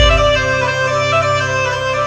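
A Maharashtrian band's wind instruments playing a melody in short held notes that step up and down over a steady low droning tone.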